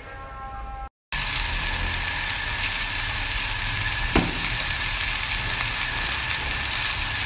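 Fried rice sizzling in a hot wok as it is stir-fried, a loud steady hiss that starts suddenly about a second in, after a moment of music and a brief drop-out. A single knock, likely the spatula on the wok, comes about four seconds in.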